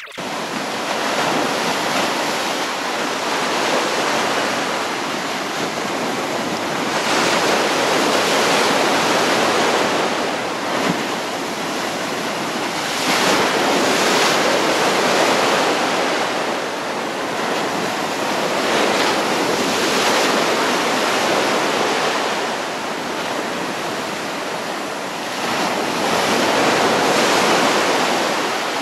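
Mediterranean surf breaking and washing up on a shore, a steady rush that swells and eases every several seconds as each wave comes in.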